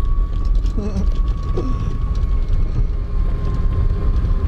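Golf cart driving over the course: a steady high whine over a low rumble, with a second, lower steady tone joining about two seconds in.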